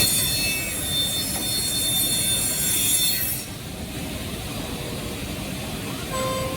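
CNC router spindle cutting wood, a high-pitched whine that stops about three and a half seconds in and leaves a lower, quieter machine noise.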